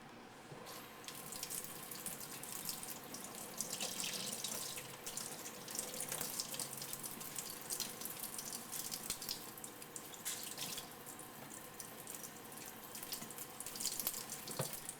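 Becker BK9 knife blade being stroked back and forth on a wet sharpening waterstone, a continuous rubbing with the strokes rising and falling in strength. It starts about a second in and stops just before the end.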